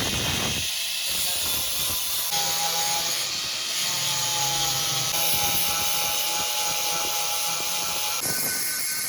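Electric grinding tool running against metal: a steady hiss with a faint motor whine. The sound shifts abruptly several times.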